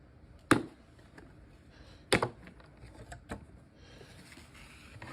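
A few sharp clicks and knocks from handling the pistol's packaging: two loud ones about half a second and two seconds in, then a couple of lighter taps.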